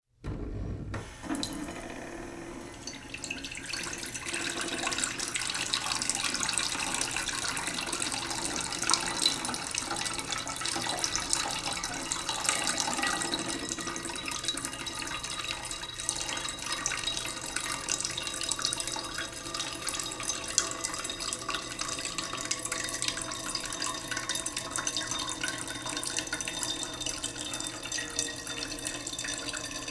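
Tap water running slowly into a cooking pot in a sink, a continuous splashing and trickling whose faint ringing tone shifts gradually as the pot fills.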